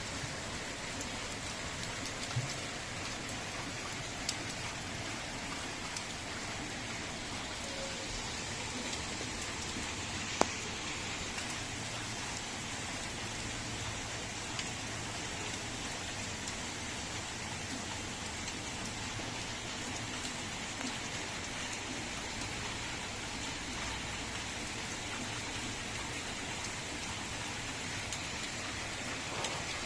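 Steady rainfall, an even hiss with scattered sharp drip taps; one louder tap comes about ten seconds in.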